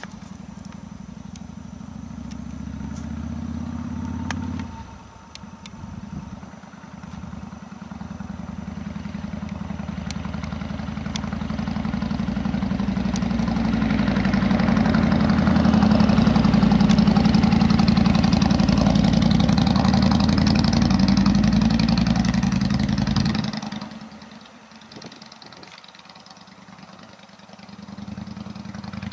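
Harley-Davidson cruiser motorcycle engine running as the bike rides up and past, getting louder to a peak through the middle, then dropping off suddenly and rising again near the end.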